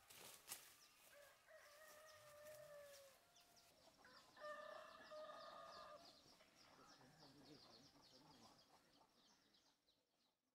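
A rooster crowing twice, each crow a held call of about two seconds, the second louder. A few footstep clicks in undergrowth come right at the start, and everything fades out near the end.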